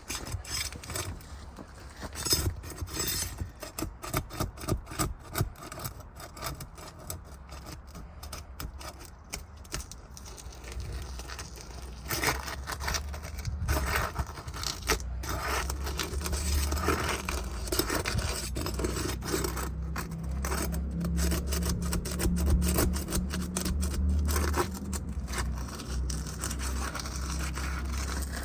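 A roofing tool scraping and prying at sealed-down asphalt shingles in quick, irregular strokes as the seal is broken to lift them. A low rumble joins about halfway through.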